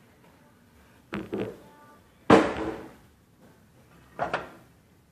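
Kitchen clatter of pots and pans being handled: a few sharp knocks of cookware on the stove or counter. The loudest comes about two seconds in with a brief ring, and a double knock comes near the end.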